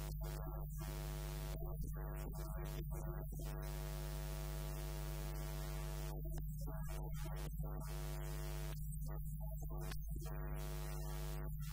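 Steady electrical mains hum and buzz from the recording or sound system, with a constant hiss over it.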